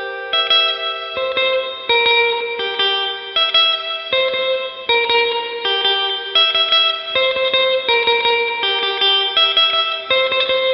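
Guitar instrumental: picked notes in a steady repeating pattern, each note ringing on under the next.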